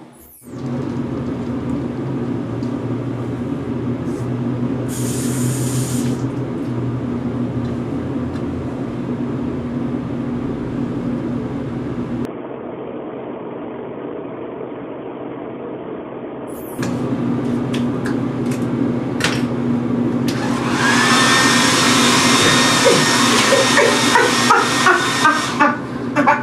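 Handheld hair dryer running steadily with a motor hum. About twenty seconds in, the rushing air becomes much louder and brighter.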